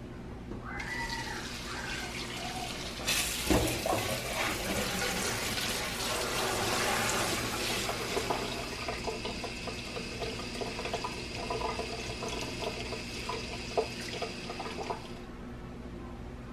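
Water running in a steady rush. It starts faintly about a second in and opens up fully around three seconds in with a knock. It cuts off suddenly near the end.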